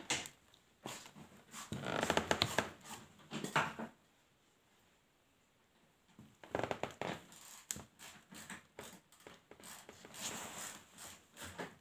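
Close handling noise: irregular rustling, scraping and knocking in two spells, with a quiet gap of about two seconds in the middle.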